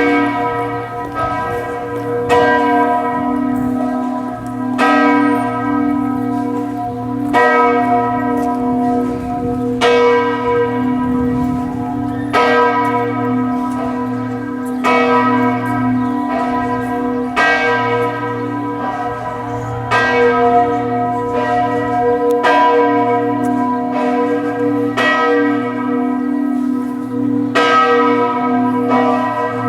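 Church bells of Chartres Cathedral ringing, struck about every two and a half seconds, each stroke dying away over a low hum that carries on between strokes. The tone is austere, with overtones that sound distorted.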